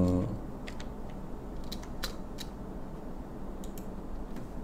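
A few scattered computer keyboard keystrokes, about seven clicks spread unevenly, over a steady low room hum while text on a slide is edited.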